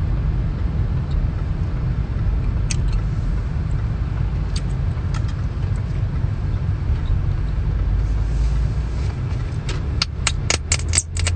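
Car on the move: a steady low road rumble, with a few scattered clicks and a quick run of sharp clicks near the end.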